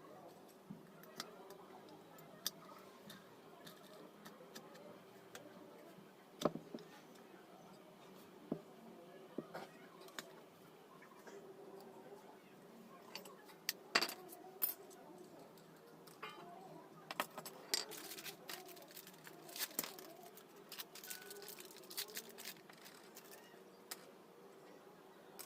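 Irregular metallic clinks and taps of small ceiling-fan parts and tools being handled during a bearing change, coming thicker in the second half, over a faint steady hum.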